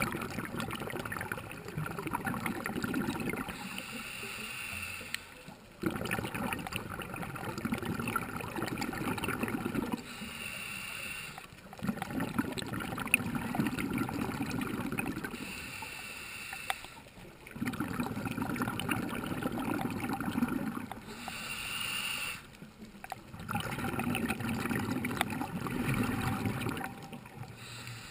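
A scuba diver breathing through a regulator underwater, at a slow steady pace about every six seconds: each inhale is a short hiss, and each exhale is a longer burble of bubbles. Four breaths in all.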